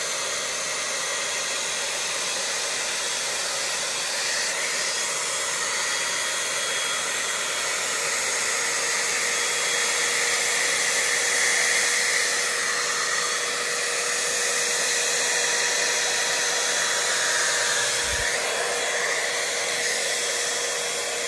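T3 AireBrush hot-air dryer brush blowing steadily, a rush of air with a faint steady motor whine, its level swelling and easing a little as the brush is worked through a section of hair to lift and straighten it.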